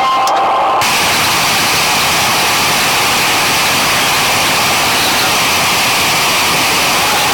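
Guitar music stops under a second in and gives way to a loud, steady rushing noise with no distinct tones, like a motor blower or rushing water.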